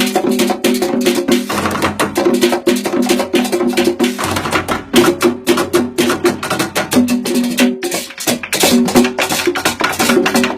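Music with fast, dense percussion of sharp wood-block-like clicks over a short repeating melodic figure.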